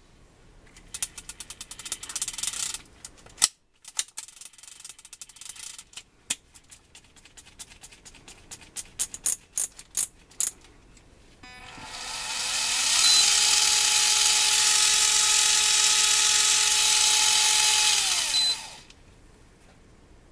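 Daiwa Hyper Tanacom 500F electric fishing reel: bursts of rapid clicking as the reel is worked by hand, then its motor spins up with a rising whine, runs steadily for about five seconds and winds down.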